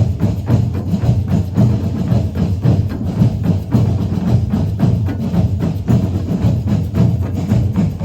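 Percussive music: a dense run of sharp clicks and knocks, several a second, over a low pulsing bass.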